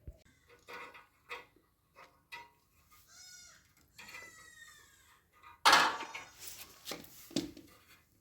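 Two drawn-out animal calls with a wavering pitch, among scattered knocks and clicks, and a loud clatter about six seconds in.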